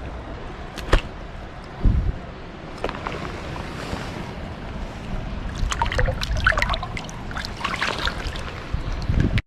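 Water splashing and trickling as a small fish is handled and let go back into a creek, with a low rumble on the microphone. There are two sharp knocks about one and two seconds in, and a dense patch of splashing in the last few seconds.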